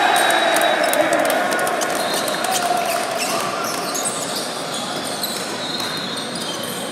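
Basketball game in play: a ball bouncing on a hardwood court with sharp knocks and clicks throughout, and a voice shouting or calling during the first few seconds.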